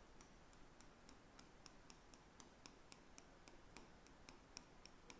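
Near silence with faint, quick clicks, about four to five a second and slightly uneven.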